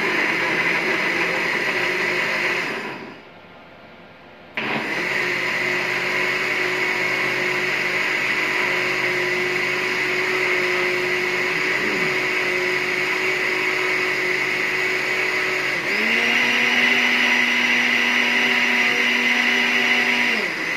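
Electric blender blending ripe papaya with milk into juice. The motor cuts off about three seconds in and restarts after a short pause. Near the end it steps up to a higher, louder speed for a few seconds, then drops back.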